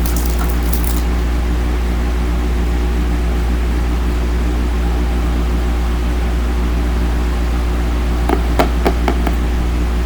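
Steady low electrical or machine hum with several fixed tones, and a few short clicks about eight seconds in.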